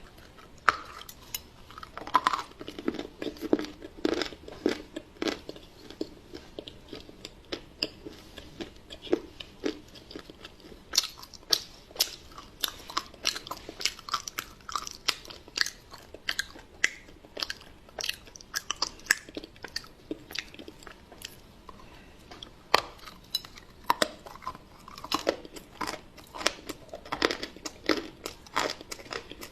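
Close-up eating sounds from a chocolate pie: a person biting and chewing a crunchy, crumbly crust, with dense rapid crunches and crackles throughout.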